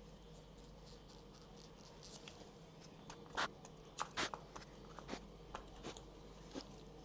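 Handling noises on the exam table: scattered light clicks and rustles, with a few sharper clicks in the middle, over a faint steady hum.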